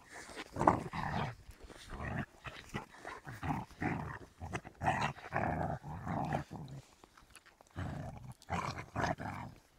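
Central Asian Shepherd puppies growling in short repeated bursts as they play-fight, with a brief pause near the end.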